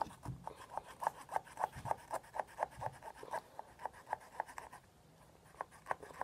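A small hand-held cutting tool scraping back and forth on the rind of a small pumpkin in quick, even rasping strokes, about four a second. It pauses briefly near the end, then starts again. The tool is making little headway into the skin.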